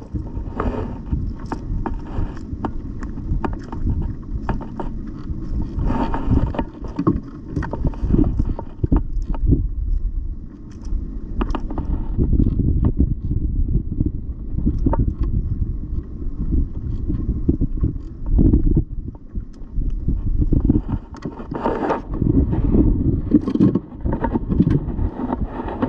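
Wind buffeting the microphone as a steady low rumble, with many short clicks, knocks and scrapes from handling a caught fish and its lure on a kayak.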